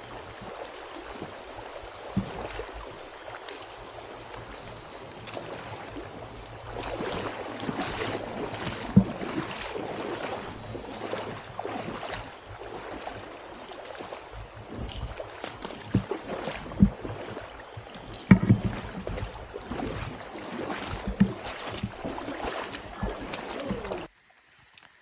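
Boots splashing step after step through a shallow, rocky stream as a hiker wades along it, over the rush of running water, with several louder splashing footfalls. A thin, steady high-pitched tone runs through the first half, and the sound cuts off suddenly about a second before the end.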